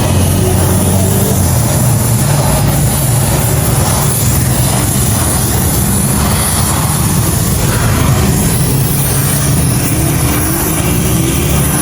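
An engine running steadily at an even pitch, with a constant high hiss over it.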